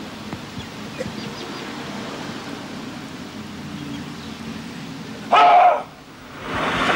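Steady hiss of rain on a wet road, then, about five seconds in, a single loud pitched blast lasting about half a second.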